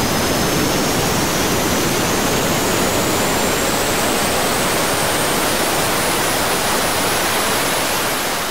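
Engine on an outdoor test rig running: a steady, loud rush of noise with a high two-toned whine that climbs slowly in pitch throughout, fading near the end.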